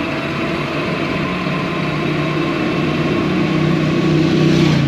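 Wind rushing over the microphone with a steady low tyre hum from a KTM Scarp Elite full-suspension mountain bike speeding downhill, growing slowly louder as it gathers speed.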